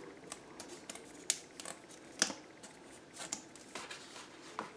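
Paper and cardstock being handled and set down on a table: light rustles and taps, with two sharper clicks about one and two seconds in.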